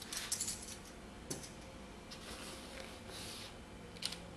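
Small items being handled and taken out of a nylon gear bag: light rustling with a few sharp clicks and knocks, a click at the start, another about a second in and one near the end.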